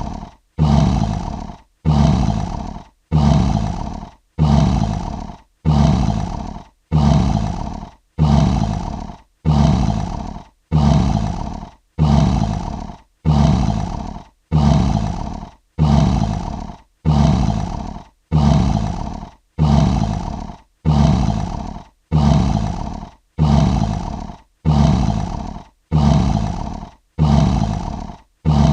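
Lion roar sound effect: a short, low roar repeated at even intervals, about one every 1.3 seconds, each starting loud and fading within about a second, identical each time like a looped sample.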